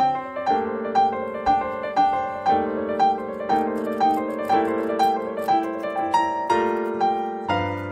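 Instrumental background music: a melody of struck notes about two a second over held chords.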